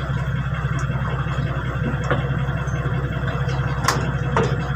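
Steady low hum of an engine idling, with a few sharp metal clicks from the truck's brake shoe assembly being handled, about two seconds in and twice near the end.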